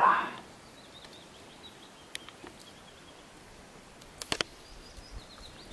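Faint, high bird chirps repeating, with a brief loud noise right at the start and a quick run of sharp clicks about four seconds in.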